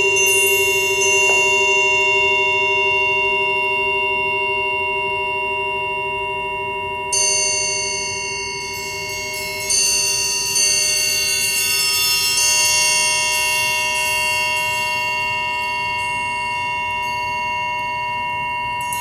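Several triangles struck and left ringing in long, sustained metallic tones over a steady lower tone, with fresh strikes adding bright high ringing about seven and ten seconds in.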